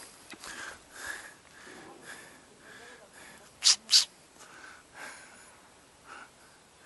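Two quick, sharp nasal breaths about a third of a second apart, like a double sniff, over faint chirps repeating roughly every half second.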